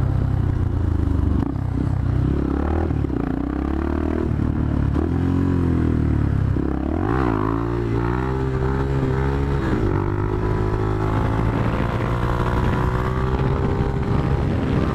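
Yamaha motorcycle engine under way, its pitch falling and rising with the throttle and gear changes, then climbing steadily through the second half as the bike accelerates.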